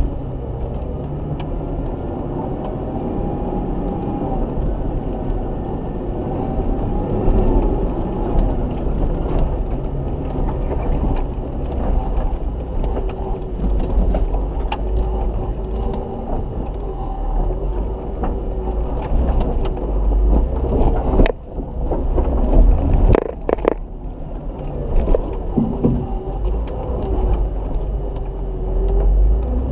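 Off-road 4x4's engine running at low revs as it crawls over rock, its pitch rising and falling a little, with tyres crunching and scattered knocks of stone against the vehicle. A brief cluster of louder knocks comes about two-thirds of the way through.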